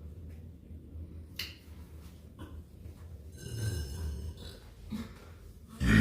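A man breathing quietly between burps, with a brief click about a second and a half in and a short faint vocal sound around three and a half seconds in. A loud burp begins right at the end.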